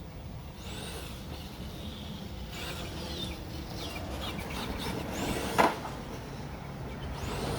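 Electric motor of a 1/10 scale RC monster truck on a 3S battery revving up and down, its whine rising and falling several times over a low rumble of tyres on pavement. A single sharp knock about five and a half seconds in.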